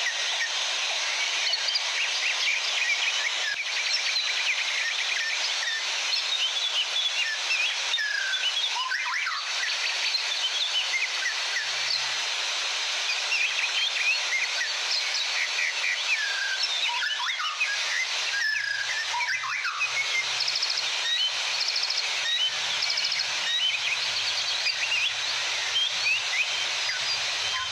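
Many small birds chirping and singing in quick, overlapping calls over a steady rush of falling water.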